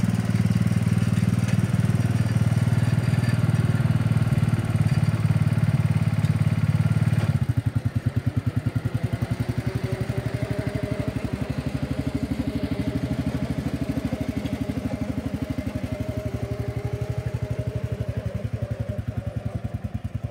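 Small engine of an old John Deere garden tractor running steady and loud close by. About seven seconds in it drops suddenly in level as the tractor pulls away, and it runs on with a rapid, even beat, quieter as it moves off.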